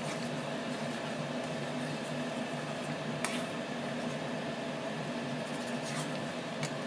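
A metal ladle stirring a thin, simmering mixture in a large aluminium kadhai, clinking lightly against the pan a few times, most sharply about three seconds in. Under it runs a steady hum and hiss.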